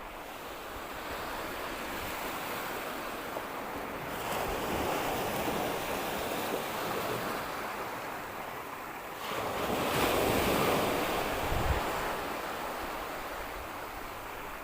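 Sea waves breaking and washing up on the beach, swelling twice in turn, with wind buffeting the microphone.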